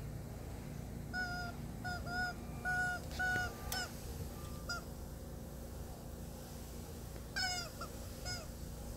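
Squeeze-toy rubber chicken squawking as a horse bites it: a quick run of short, squawks of steady pitch over the first few seconds, a single one at about the middle, then two more near the end.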